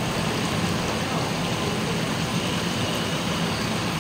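Steady rushing hiss of steam and water spraying from a hot-spring vent in a rocky stream bank, with a low hum underneath.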